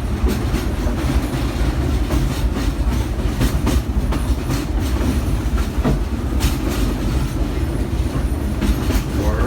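Steam excursion train's passenger car rolling along the track: a steady low rumble with irregular clanks and clicks of the wheels over the rail joints.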